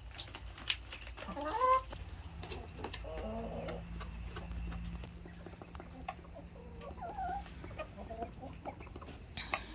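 Domestic hens clucking, with short calls at intervals; the loudest is a run of rising calls about a second and a half in.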